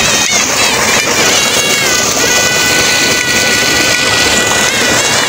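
Water gushing steadily from a solar-powered tube well's outlet pipe, a loud even rush with no breaks.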